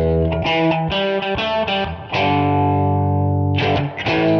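Music: a distorted electric guitar playing repeated struck chords.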